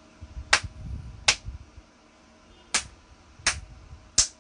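Hands striking together in an even rhythm: five sharp slaps about three-quarters of a second apart, with one beat missed in the middle. They are counted repetitions of a hand-striking exercise done about forty times.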